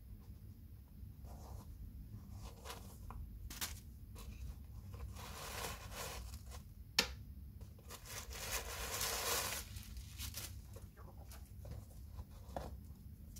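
Handling noise from a canvas sneaker in a tissue-lined cardboard shoebox as it is turned and its laces are pulled: scattered rustling and crinkling, two longer rustles in the middle, and one sharp click about seven seconds in, over a low steady hum.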